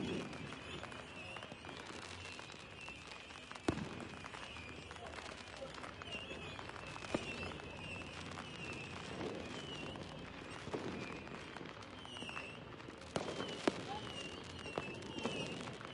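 Fireworks going off some way off: scattered pops and bangs, with a few sharper cracks close together near the end.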